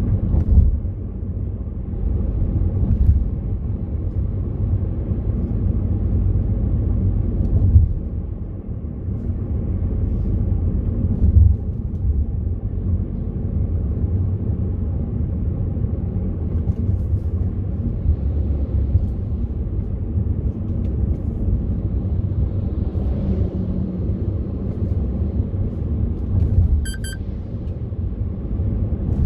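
Car driving, heard from inside the cabin: a steady low rumble of engine and tyre noise, swelling louder a few times. Near the end comes one short, high electronic beep.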